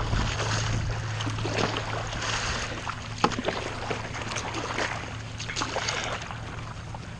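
Paddle strokes splashing and dripping in lake water at irregular intervals, over a steady low hum.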